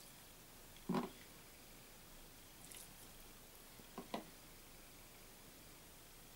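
A few short soft clicks and taps from a metal tablespoon and a plastic soy sauce bottle being handled over a plastic bowl as soy sauce is measured out by the spoonful: the loudest about a second in, a quick pair near four seconds.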